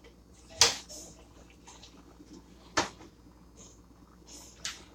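Two sharp knocks, about two seconds apart, of kitchen items being handled and set down, with a few faint small clatters between.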